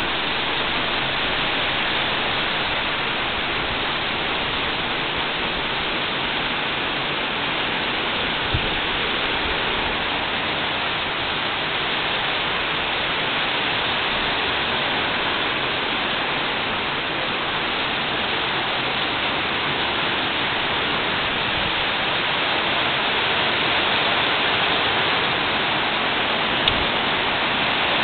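Heavy rain falling steadily, pouring onto a tiled terrace and the yard beyond with an even hiss.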